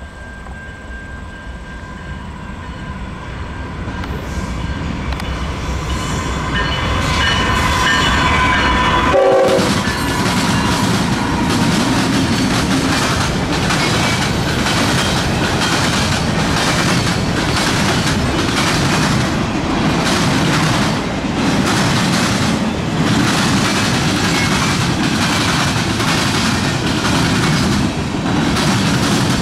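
Diesel-hauled freight train approaching, growing steadily louder with steady tones, and passing about nine seconds in with a drop in pitch. Its freight cars then rumble past, their wheels clacking rhythmically over a diamond crossing.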